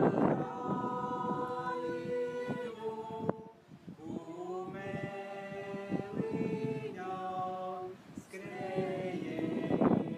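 A choir singing slow, held chords, each chord sustained for a second or two before moving to the next, with a short break about three and a half seconds in.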